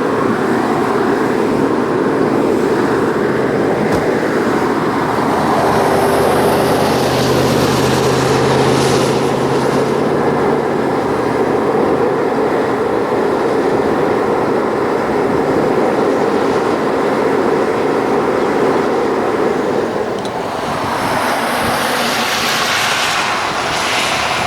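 A moving car's steady road and engine noise, with a faint low hum that fades out about ten seconds in.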